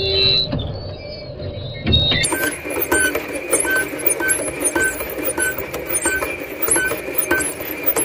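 Hoeing robot working a sugar beet row in crumbly soil: a steady machine whine with a short regular tick about twice a second, and scattered clinks and scrapes from the hoe tools in the soil. The sound changes abruptly about two seconds in, from a muffled mix with a few gliding tones to this clearer running noise.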